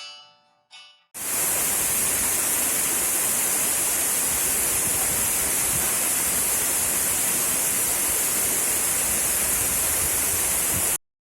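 Steady rushing roar of a waterfall, heavy in high hiss. It starts abruptly about a second in, just after the last plucked notes of background music, and cuts off suddenly near the end.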